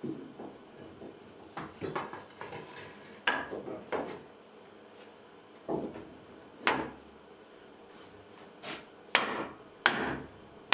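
Irregular knocks and short scrapes of wood on wood from hand-tool work on pine at a workbench, about a dozen unevenly spaced, with the sharpest pair near the end.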